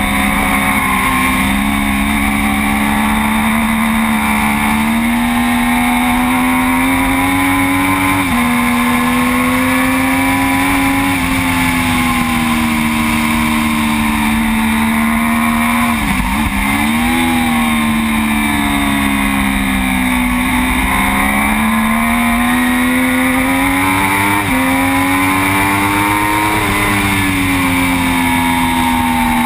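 Racing motorcycle engine heard from on board at racing speed, its pitch rising and falling with the throttle. Sudden steps in pitch about 8 and 24 seconds in mark gear changes, and a sharp dip and climb near the middle as the bike slows for a corner and drives out. Steady wind rush over the camera underneath.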